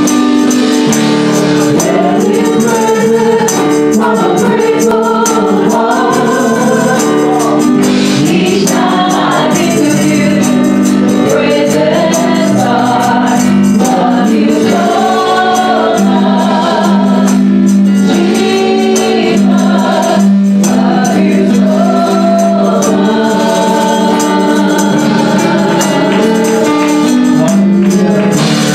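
Gospel praise team singing a worship song together through microphones, over steady held chords, with a tambourine shaken in time.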